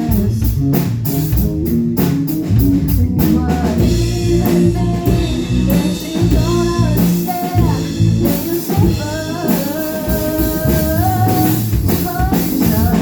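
A band playing a song, with a singer, guitar and drum kit keeping a steady beat.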